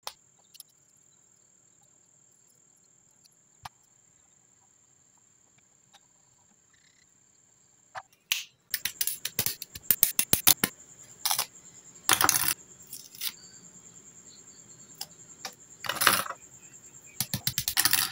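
Plastic model-kit parts and runners being handled and snapped together: mostly quiet with a faint steady high whine and a few single clicks at first, then from about eight seconds in a dense run of sharp plastic clicks and clatters.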